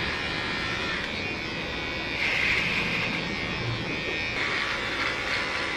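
Electric hair clippers buzzing as they shave the back of the head, the donor area for follicle extraction in a hair transplant. The buzz grows louder for about a second, roughly two seconds in.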